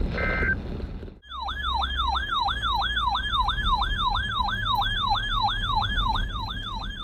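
A brief burst of alert data tones, like an EAS end-of-message burst. From about a second in, an electronic siren sounds in a fast yelp, its pitch sweeping up and down about three times a second.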